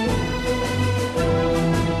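Instrumental background music with held notes over a steady bass line.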